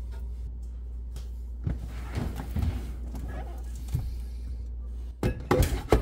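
Hard plastic knocks and thunks from a 3D-printed carbon-fibre PETG center console being pushed and rocked by hand to test that it is mounted solidly, with a few sharp knocks near the end.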